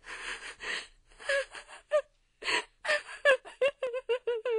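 A woman sobbing: breathy gasping sobs, then a run of short, quick catching sobs that break into a drawn-out, wavering wail near the end.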